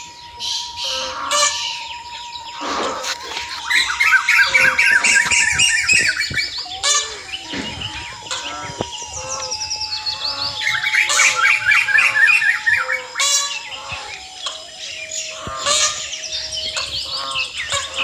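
Several birds chirping and calling over one another, with a long, fast trill about four seconds in and again about eleven seconds in. A faint steady tone runs underneath.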